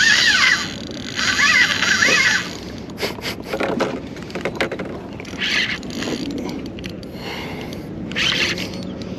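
Spinning reel whirring in repeated bursts whose pitch rises and falls, as a hooked mulloway is played on a bent rod. After about two and a half seconds this gives way to scattered clicks and short rushes of noise.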